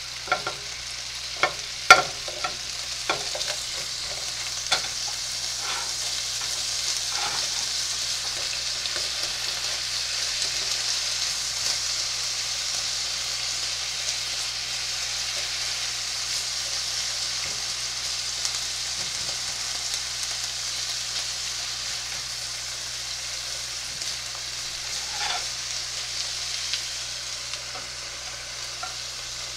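Sliced beef sizzling in its own juice in a frying pan as onion and bell peppers are stirred in, a steady hiss. Several sharp knocks come in the first few seconds and again later, as the spatula works the pan.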